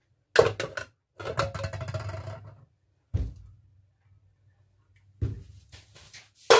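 Kitchen clatter from a cooking-oil can and frying pan being handled on the stove: a run of knocks and clanks, a heavy dull thud about three seconds in, and a loud clank near the end.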